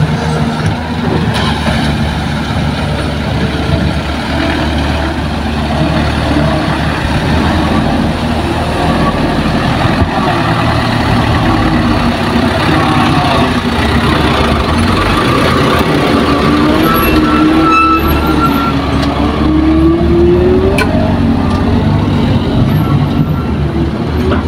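Heavy diesel engines of an excavator and a dump truck running at work, a steady low rumble. A wavering, rising whine comes in about two-thirds of the way through.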